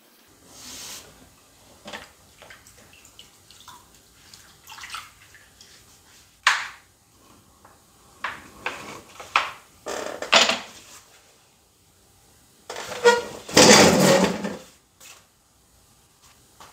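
Wet hands working a clay mug on a pottery wheel: irregular wet squishing and scraping, with a louder noisy stretch about thirteen seconds in.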